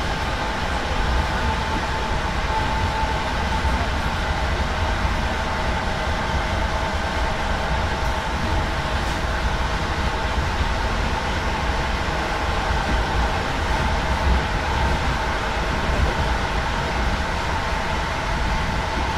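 Electric regional passenger train running at speed, heard from inside the carriage: a steady rumble of wheels on the track with a constant whine over it.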